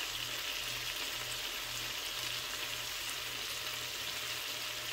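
Chicken drumettes pan-frying in a skillet: a steady sizzle.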